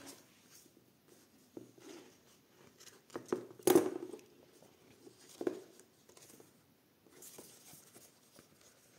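Paper and card rustling and tapping as a hand-sewn junk journal and its signature are handled and turned over. There are a few louder rustles near the middle.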